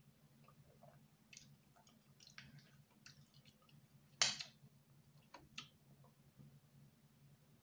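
Faint close-miked eating sounds: wet chewing and small mouth clicks, with one louder sharp click about four seconds in, over a steady low hum.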